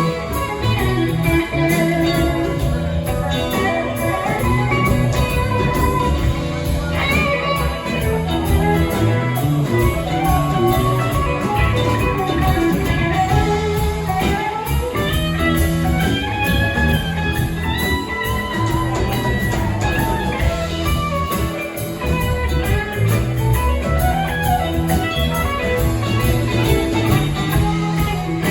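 A live rock band playing an instrumental passage: an electric guitar plays melodic lines with sliding, bent notes over a steady bass line.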